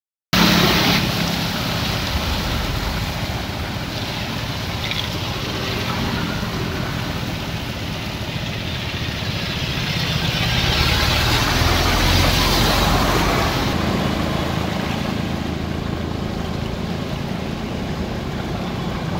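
Cars driving slowly through shallow muddy floodwater over a road: engines running and the steady wash of tyres pushing through water, louder for a few seconds about ten seconds in as a car passes close.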